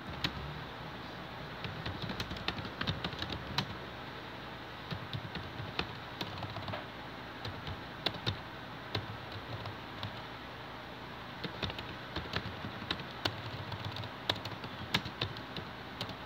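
Typing on a keyboard: quick key clicks in irregular bursts with short pauses between, over a steady background hiss.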